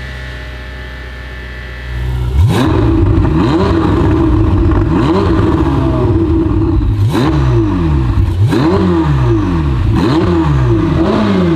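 Ferrari 488's 3.9-litre twin-turbo V8 revved again and again: a sudden loud start about two seconds in, then a string of rising-and-falling blips, several close together near the end.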